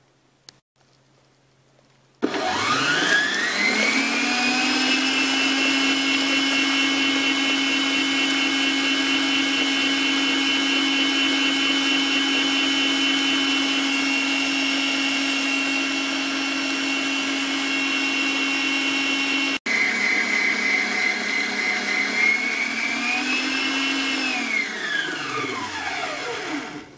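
Electric stand mixer starting up about two seconds in, its motor whine rising to a steady pitch as the beater mixes eggs into creamed butter and sugar. After a brief break it runs on slightly lower, speeds up for a moment, then winds down and stops near the end.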